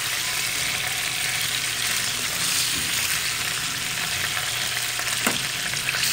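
Chicken pieces sizzling in hot oil in a non-stick frying pan while a spoon stirs and scoops them out, with a short clack of the spoon a little after five seconds.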